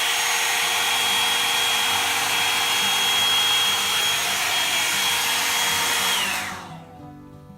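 Revlon One-Step hair dryer and volumizer brush blowing steadily with a high whine, then switched off about six seconds in, its motor whine falling as it spins down.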